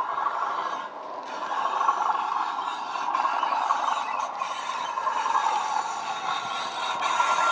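Recorded Class 37 diesel engine sound, modelled on the English Electric 12CSVT, played by a DCC sound decoder through the model locomotive's small speaker. It grows louder about a second in as the locomotive draws near, then runs on steadily.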